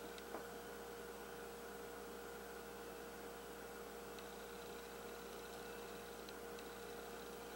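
Faint steady electrical hum with a constant tone over low hiss: room tone. A single soft click sounds shortly after the start.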